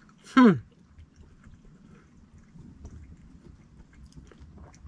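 A woman's short "mmm" of appreciation as she tastes her food, falling steeply in pitch, then faint small clicks of a fork on a plate.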